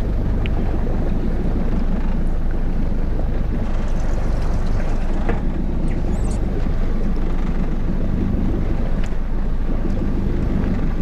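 Steady low rumble of wind on the microphone aboard a small boat on open water, with a few faint clicks.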